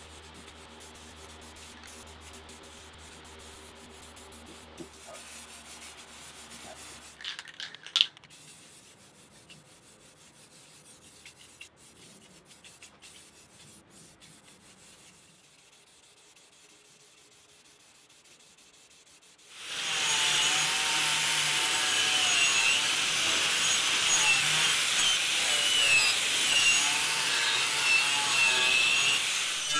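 Angle grinder with a wire wheel starting up about two-thirds of the way in and running steadily against steel, stripping rust and old paint from a wheelbarrow's metal bracket. Before it the sound is faint, with a couple of sharp clicks about eight seconds in.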